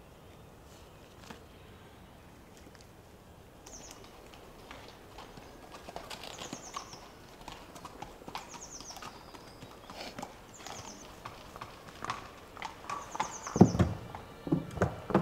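A horse's hooves clip-clopping as it approaches, growing louder from about four seconds in and loudest near the end.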